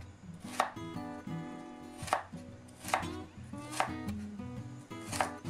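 Chef's knife dicing carrot on a wooden cutting board: about five sharp knocks of the blade against the board, unevenly spaced.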